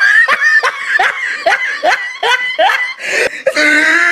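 A person laughing hard: a run of short high-pitched laughs, about three a second, breaking into a longer held laugh near the end.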